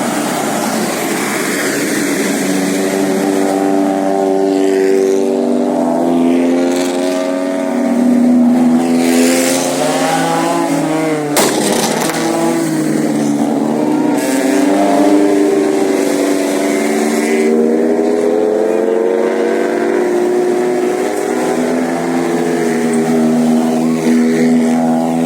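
Bus engine running under acceleration, its pitch climbing and dropping again several times. There is a short sharp knock near the middle.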